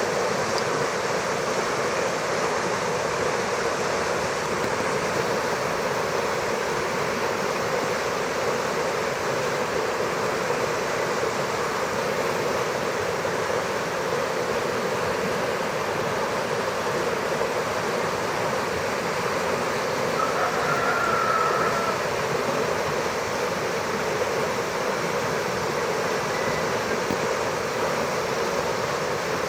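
Churning, fast-flowing stream: a steady rush of water.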